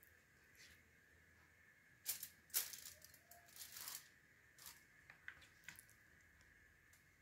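Faint, scattered wet squelches and crinkles of hands working marinated chicken pieces in a plastic bowl and laying them on a foil-lined tray: a few short sounds between about two and six seconds in, the loudest near the middle.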